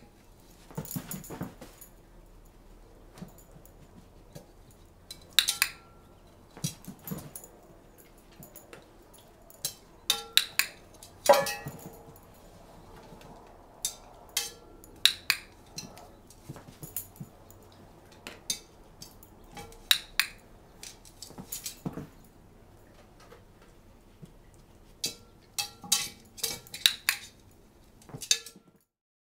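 A large dog's paws and claws knocking and scraping in a metal roasting pan: irregular metallic taps and clanks, with one louder ringing clank about eleven seconds in.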